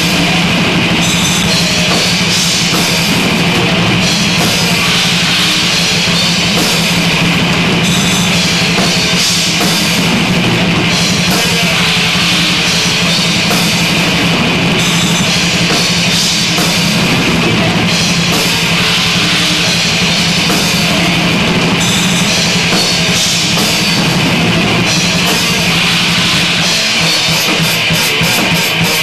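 Heavy metal played live on a drum kit and electric guitar, loud and without a break.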